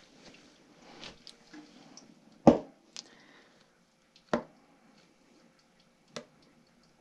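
A stirring stick knocking against a cup of hot liquid soft plastic as it is mixed: about five sharp, irregularly spaced knocks, the loudest about two and a half seconds in.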